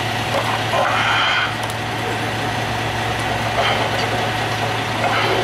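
Heavy tow truck's engine idling steadily, a constant low hum.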